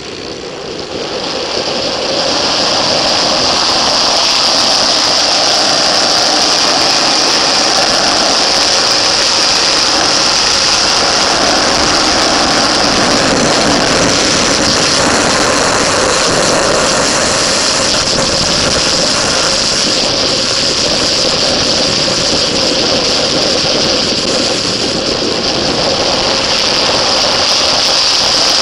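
Motorcycle engine running hard with heavy wind rush, heard from a camera mounted on the bike at speed. The level climbs over the first couple of seconds as the bike accelerates out of a corner, then holds steady.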